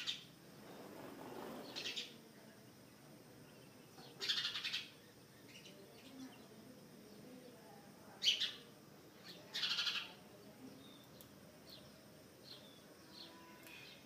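Sparrows chirping: about five short, high chirps and quick chattering runs of notes a few seconds apart, with a few fainter chirps near the end.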